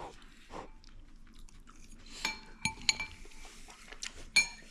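Utensils clinking against dishes: a few separate sharp, ringing clinks, the loudest near the end.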